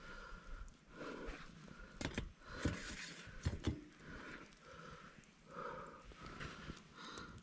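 A metal grill grate knocking and clinking against its upright metal stake as it is fitted over the embers of a wood fire, with the sharpest knocks between about two and four seconds in. Softer breathy sounds and rustling repeat through the rest.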